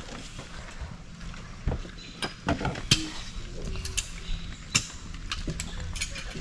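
Scattered light clicks and knocks at irregular intervals, about ten of them, over a low steady background.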